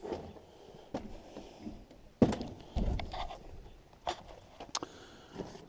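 Handling sounds from working on a van door's trim and wiring: a few sharp plastic clicks, the loudest about two seconds in, and a dull knock shortly after.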